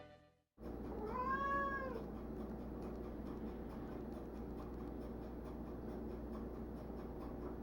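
Domestic cat meowing once about a second in, a single drawn-out meow that rises and then falls in pitch, followed by a low steady room hum.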